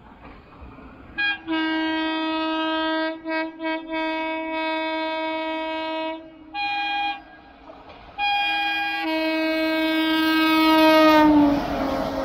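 Indian Railways locomotive air horn sounding as a train approaches at speed: a brief toot, a long blast with a few short breaks, a short toot, then a final long blast whose pitch drops as the locomotive passes. The horn gives way near the end to the rushing noise of the train running past.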